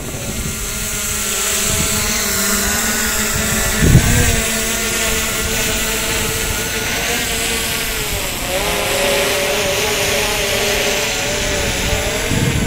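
Sound effect of a powered aircraft in flight: a steady motor drone with several wavering tones over a hiss, with a short low thump about four seconds in.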